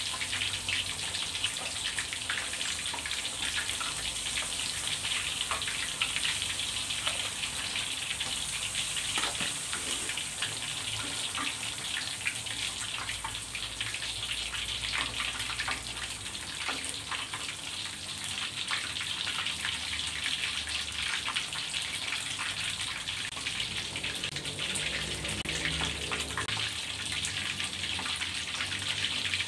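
Hot oil in a wok sizzling steadily with dense fine crackling as battered catfish and drizzled batter deep-fry, the batter crisping into crunchy bits.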